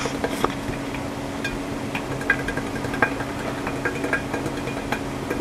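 Faint scattered taps and rustling of flour being shaken and tilted around inside a greased metal cake pan, over a steady low hum.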